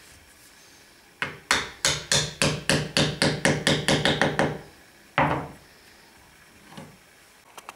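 A hammer tapping the carbon-steel iron of a wooden Japanese kanna plane to set the blade. A quick run of light, ringing taps, about fifteen of them, speeds up over some three seconds, then one last tap follows a second later.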